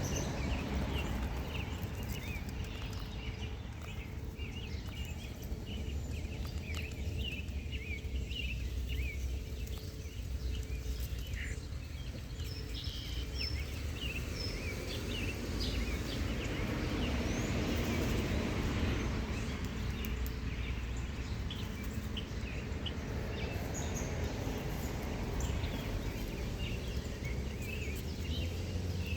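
Small birds chirping, many short scattered chirps, over a steady low outdoor rumble.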